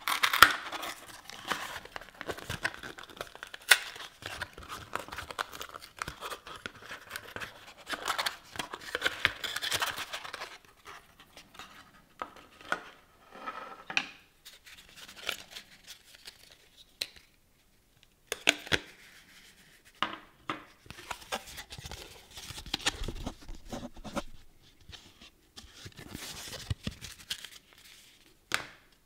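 Raspberry Pi 5 packaging handled and opened by hand: irregular rustling and crinkling of wrapping, with scattered clicks and taps, in bursts separated by short pauses.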